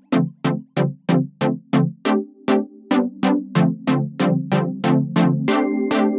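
Electronic background music: a quick, steady beat of short strikes, about three a second, over sustained synthesizer chords that fill out into a continuous layer near the end.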